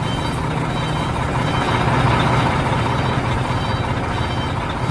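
Diesel box truck engine running with a steady low rumble as the truck moves slowly.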